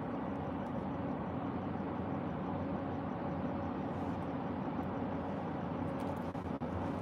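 Steady low background rumble with no speech, with a few faint clicks near the end.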